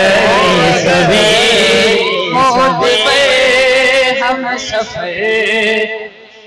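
A man singing a naat, drawing out long wavering notes without words, until the singing stops about six seconds in.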